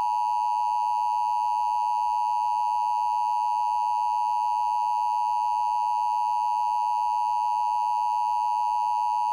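Emergency Alert System attention signal: a loud, steady electronic tone pitched near 1 kHz, held without a break.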